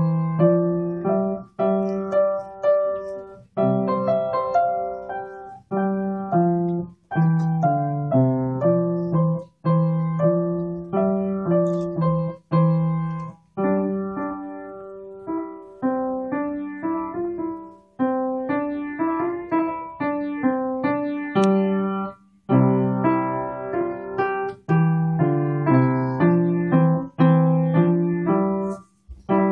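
A young child playing a piece on a Kawai upright piano: melody over a lower accompaniment, in short phrases, each separated by brief pauses.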